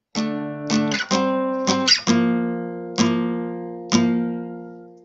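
Acoustic guitar strumming chords: a handful of quick strums, then two single strums about a second apart, the last one left to ring and fade out.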